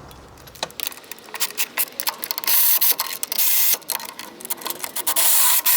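New wheel-hub stretch bolts being run in with a power ratchet: three short bursts of the tool running, between rapid metallic clicks.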